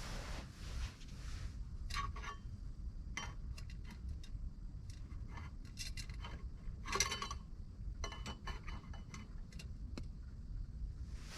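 Small hard camp cookware and utensils being handled: scattered light clicks and clinks, with a louder cluster about seven seconds in.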